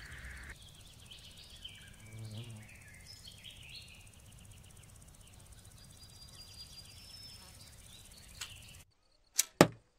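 A 3D printed bow shooting an arrow: two sharp, loud snaps a fraction of a second apart near the end, the string's release and the arrow striking. Before it, faint field ambience with chirping.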